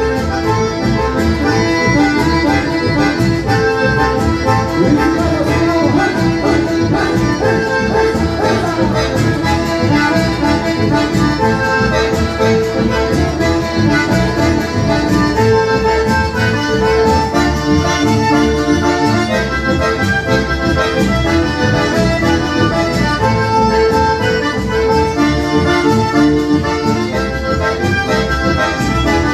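Live band music led by accordion, playing a steady instrumental passage over a regular beat.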